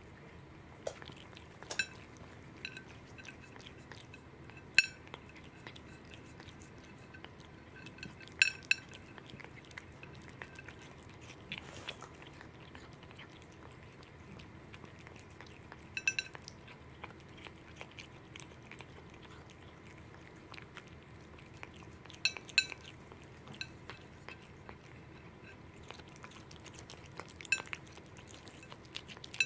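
A cat eating raw salmon off a ceramic plate, chewing quietly, with sharp ringing clinks every few seconds as the metal charm on its collar knocks against the plate.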